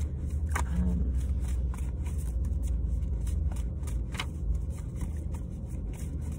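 Tarot cards being shuffled by hand: soft, irregular clicks and snaps of the cards over a low, steady rumble inside a car.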